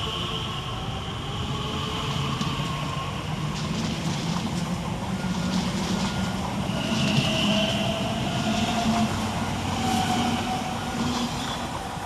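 Class 345 Elizabeth line electric train pulling out of the station, its traction motors giving a whine that climbs gently in pitch over the running noise of the wheels on the rails, fading near the end.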